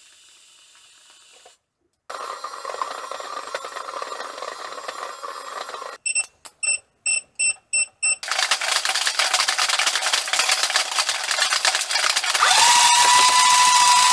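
Toys overdriven by a bench power supply, one after another. First a harsh electronic rasp, then a toy sound chip's small speaker gives about six quick beeps, then a dense buzzing hiss. Near the end a toy's electric motor whines up to a steady high pitch.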